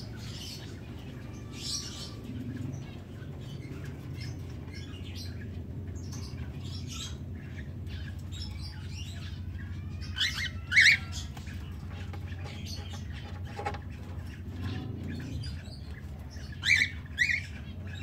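Cockatiels chirping, with two loud double squawks, one about ten seconds in and one near the end, over a steady low hum.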